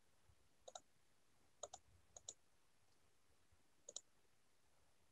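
Faint computer mouse clicks, about six in all, some in quick pairs, over near silence.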